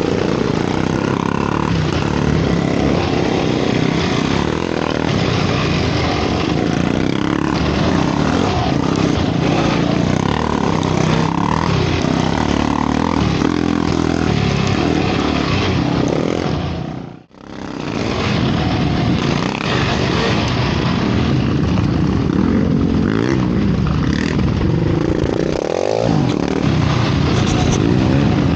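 Yamaha YFZ450 sport quad's single-cylinder four-stroke engine running hard along a dirt trail. The sound drops almost to nothing for a moment a little past halfway, and near the end the engine revs up and drops back.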